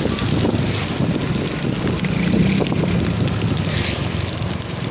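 Wind buffeting the microphone in a loud low rumble, with a vehicle engine humming underneath.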